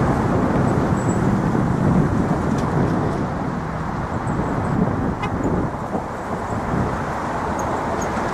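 Steady road traffic noise from cars on the bridge's roadway.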